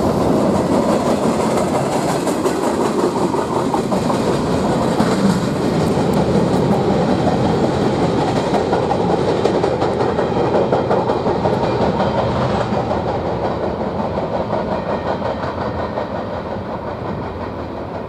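Freight train cars rolling past on the rails, the wheels clicking over the rail joints. The sound fades gradually over the last few seconds as the train moves away.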